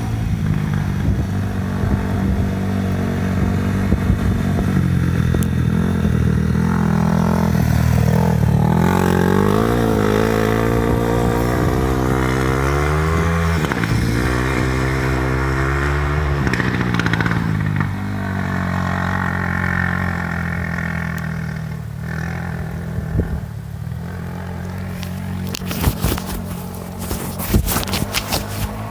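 Single-cylinder 450cc four-stroke off-road engine revving up and down for several seconds, then running more steadily, with a run of sharp crackling clicks near the end.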